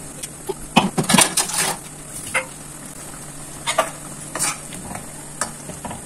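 Tomato chutney cooking in oil in an aluminium kadai, giving a steady faint sizzle, with a scattering of short sharp metallic clinks, several close together about a second in and single ones later.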